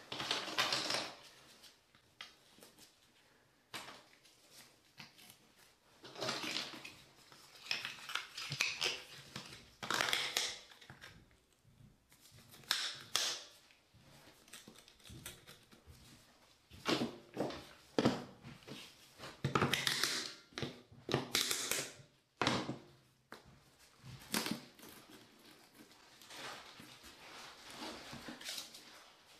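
Trowel scraping and spreading thinset mortar on cement backerboard as floor tiles are laid, in irregular scraping bursts with short pauses between.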